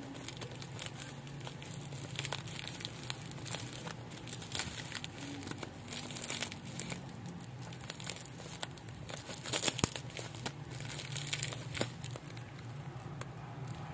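Bubble-wrapped plastic parcel packaging crinkling and rustling as it is handled and unwrapped, in irregular crackles with louder bursts around the middle and again after about nine seconds.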